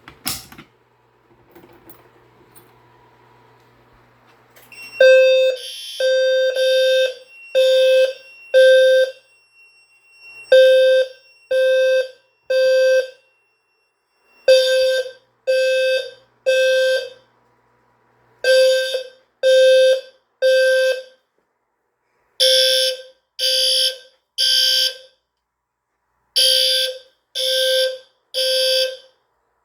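Fire alarm sounders going off in the temporal-three evacuation pattern: three buzzy half-second blasts a second apart, then about a second and a half of silence, repeating. They start about five seconds in, ragged at first, after a sharp click and a faint hum.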